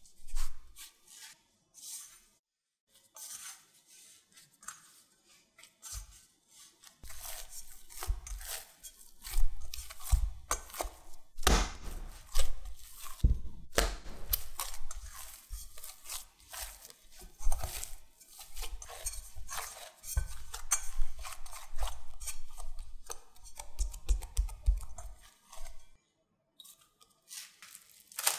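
Sticky bread dough being worked in a glass bowl: first stirred with a spatula, then kneaded and repeatedly thrown down by hand, giving wet slapping and squishing noises with a long run of dull thumps.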